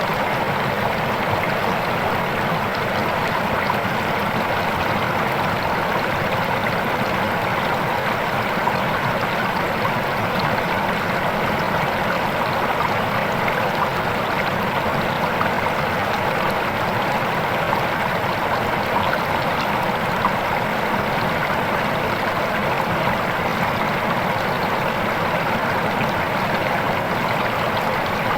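Fast, clear river water rushing and splashing over its bed in a steady, unbroken noise.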